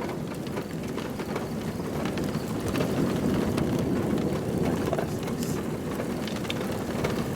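Steady noise of storm wind and rain, with scattered light ticks, slightly louder from about three seconds in.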